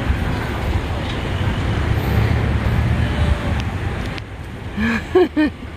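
Steady low rumble for about four seconds. Then it drops, and a person's voice makes a few short sounds about five seconds in.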